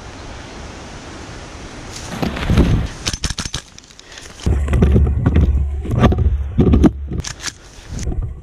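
Handling noise on a head-mounted action camera as an airsoft player moves and crouches: gear rattling and rustling with sharp clicks, and heavy rumbling knocks on the microphone. It starts after a steady hiss, about two seconds in, and grows denser from about halfway.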